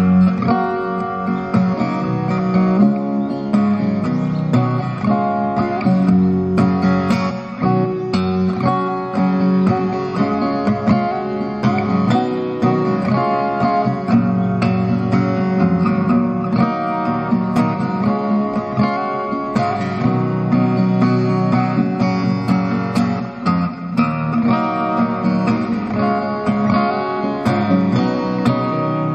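Solo acoustic guitar played fingerstyle, a melody picked over chords with frequent sharp note attacks, continuing without a break.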